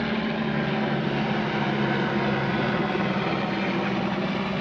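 Electric motor and propeller of a balsa RC model Cessna running with a steady whine during its takeoff roll.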